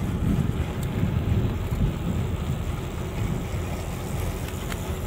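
Wind buffeting the microphone of a camera carried on a moving mountain bike: a low, uneven rumble that rises and falls.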